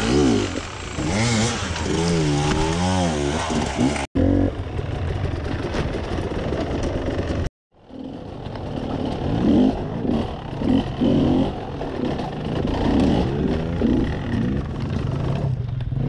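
Enduro dirt-bike engines revving hard on rough terrain, the pitch rising and falling with the throttle. The sound cuts off abruptly twice, about four and seven and a half seconds in, then returns as a string of short throttle blips.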